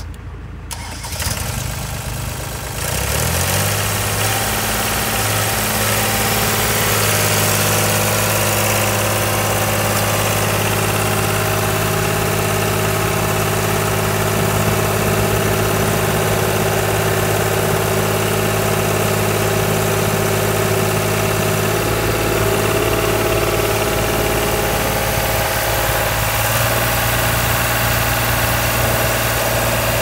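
Vermeer V3550A trencher's engine cranked over briefly and catching about three seconds in, then running steadily at idle. Its speed shifts slightly twice in the last ten seconds.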